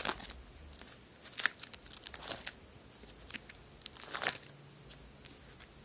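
Clear plastic binder sleeve pages crinkling as they are handled and turned, in several short crackles, the loudest about a second and a half in and again around four seconds in.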